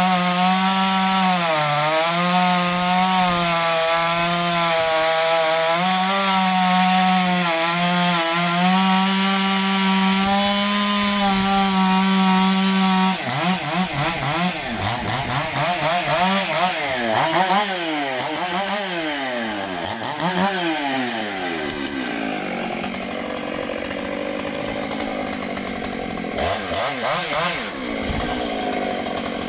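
Stihl MS 661 C two-stroke chainsaw running at full throttle while cutting through a log, its high engine note dipping slightly under load. About thirteen seconds in it comes off the cut and is revved up and down several times, then drops to a lower, quieter running with a brief rev near the end.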